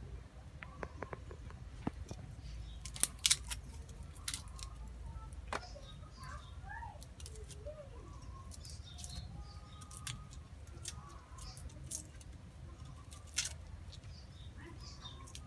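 Sharp clicks and light scraping of a small knife peeling garlic and shallots by hand, the loudest clicks about three seconds in, with a few bird chirps in the background.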